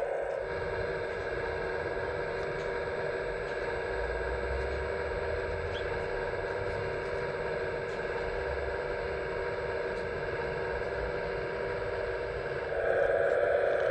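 Hydraulic pump of an RC Liebherr A918 model excavator running with a steady electric whine as the crane work goes on, growing louder near the end.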